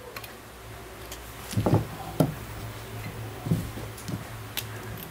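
A handful of clicks and knocks from equipment being handled, the largest pair about a second and a half to two seconds in, over a steady low electrical hum.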